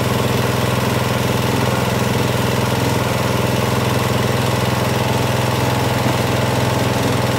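Small household rice milling machine running steadily, its electric motor giving a constant even hum while paddy is fed into its hopper.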